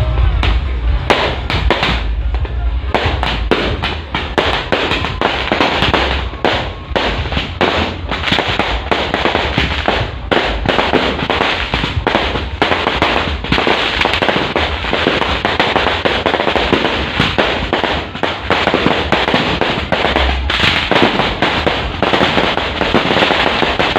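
Firecrackers going off in a long string of rapid, crackling bangs that come thicker after the first few seconds. Bass-heavy music from a sound system plays underneath and is strongest near the start.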